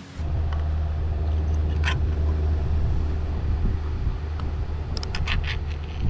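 A steady, loud low rumble starts abruptly, with a few short sharp clicks about two seconds in and a quick cluster of them near the end.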